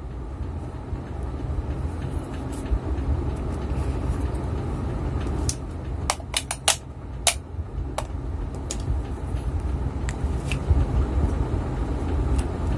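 Steady low background rumble, with a handful of light clicks and taps about halfway through as the fan motor's metal housing and end cover are handled and fitted together.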